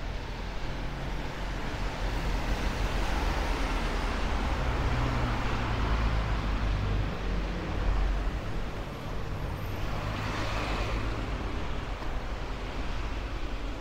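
Street traffic: cars driving past, swelling and fading twice, once over a few seconds midway and again more briefly near the end, over a steady low rumble.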